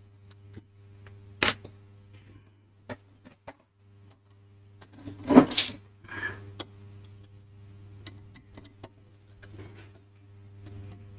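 Scattered clicks and knocks of tools and hands on the metal case of a car radio being taken apart, with one louder clatter about five seconds in. A steady low hum runs underneath.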